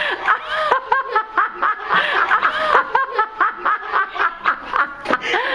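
People laughing hard and without stopping, a quick run of short 'ha' syllables several times a second.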